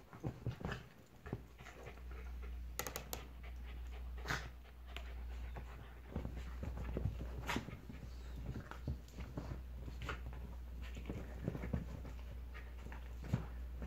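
A Shetland sheepdog and a Jack Russell terrier play-fighting: panting, with many short sharp snaps and scuffles as they wrestle on couch cushions. A steady low hum runs underneath from about a second in.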